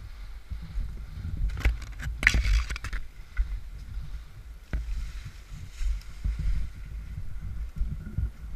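Uneven low rumble of wind and movement on the microphone, with a quick cluster of sharp clicks about one and a half to three seconds in and a single sharp click a couple of seconds later.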